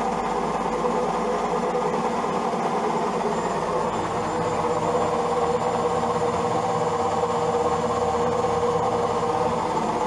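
Old Zanussi front-loading washing machine on its spin cycle, giving a steady hum as the cabinet vibrates; the cause of the humming and shaking is unknown to the owner.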